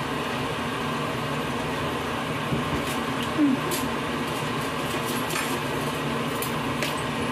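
A steady mechanical hum, with a few light scrapes and clicks as a small brush scrubs a crab's shell.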